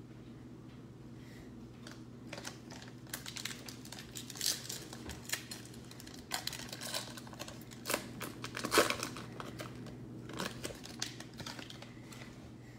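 Plastic trading-card pack wrapper being torn open and crinkled by hand: a run of irregular crackling rustles starting about two seconds in, loudest about two-thirds through.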